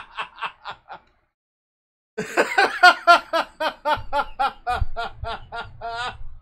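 A man laughing in quick, rhythmic 'ha-ha' pulses. The laugh dies away about a second in, then starts again after a short pause and runs for about four seconds.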